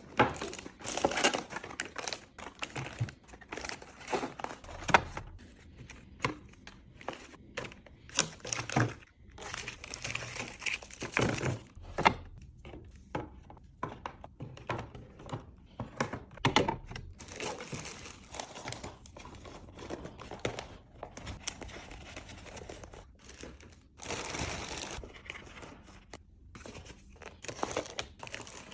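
Plastic packaging crinkling and tearing, with irregular clicks and light knocks as items are handled and set down.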